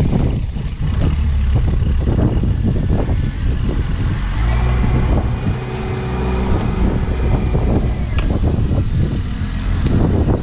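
An engine running, with a heavy, rough low rumble and a steadier hum for a few seconds in the middle.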